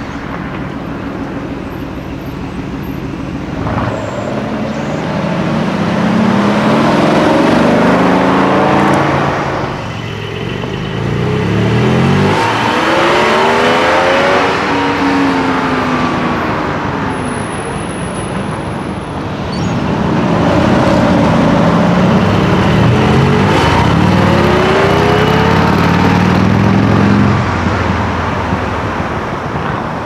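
Sports car engines accelerating hard in three surges, the pitch climbing through the revs each time before falling away, over steady traffic noise.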